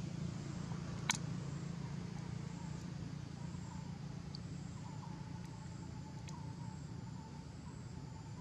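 Steady low rumble of outdoor background noise, with one sharp click about a second in and a faint steady whine coming in about halfway.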